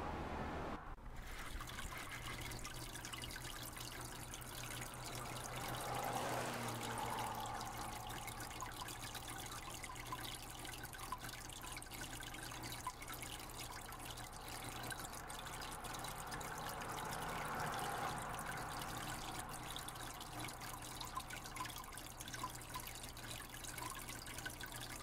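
Water trickling and splashing over rocks into a shallow pond, a steady running sound that swells a little twice, with a faint low hum underneath.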